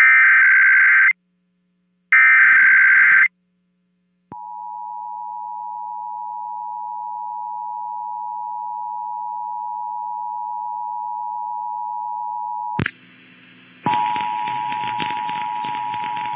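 Emergency Alert System test: two warbling SAME data header bursts, each about a second long with a second's gap, then the steady two-tone EAS attention signal for about eight seconds. It cuts off with a click and a second of faint hum, after which another station's attention tone starts under heavy crackling noise.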